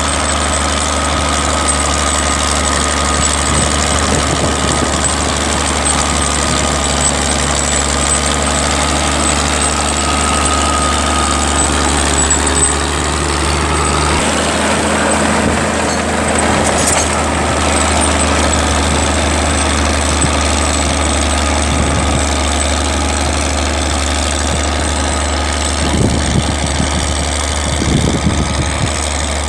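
Tractor engine running steadily at a low, even note, which shifts about halfway through. A few brief low rumbles come near the end.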